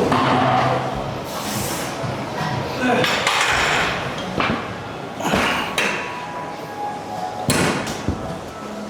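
Metal gym weights clanking, several separate knocks a second or so apart, over a background of voices.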